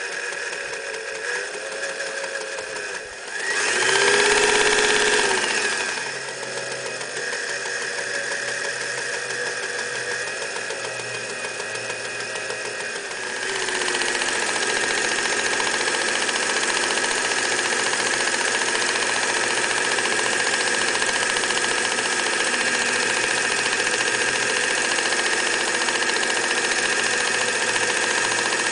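Singer 99K electric sewing machine running as it stitches through fabric, the motor whirring under the needle mechanism's rapid clatter. It stops briefly about three seconds in, surges and slows again, then from about halfway runs louder and steadier at a faster pace.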